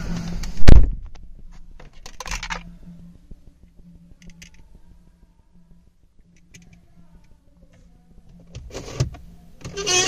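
A loud thump under a second in, then scattered light clicks and rustles of hands working the controls inside a parked car's cabin, over a faint steady hum.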